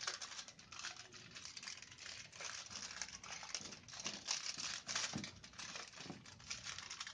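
Sheet of aluminium foil crinkling faintly and irregularly as hands lift and fold it over to roll up a layer of dough.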